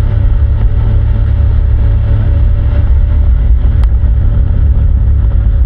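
Motorboat engine running steadily, a loud continuous low rumble with a steady hum over it.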